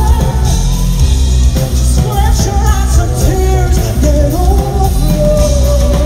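A live band playing a song with a woman singing the lead vocal into a microphone, with heavy bass and drums, recorded from within the audience. Near the end she holds one long note.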